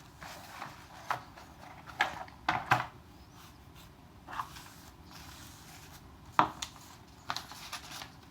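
Parts of an RC car repair stand being taken out of their box and set down on a table: scattered knocks and clicks with handling noise between them, the loudest knock about six seconds in.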